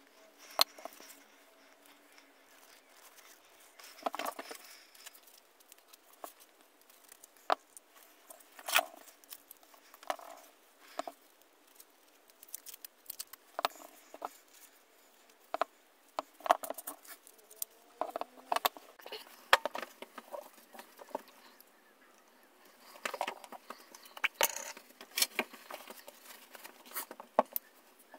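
Parts of an old hand drill being handled and set down on a workbench: irregular light clicks and knocks of small metal and plastic pieces, busier near the end.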